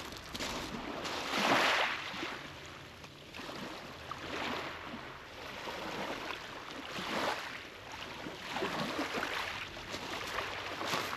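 Small ocean waves washing in on the shore, each swelling and fading away, about one every two to three seconds; the first, about a second and a half in, is the loudest.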